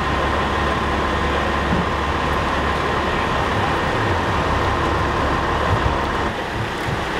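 Heavy diesel engines of fire apparatus idling: a steady low rumble with a faint steady whine over it.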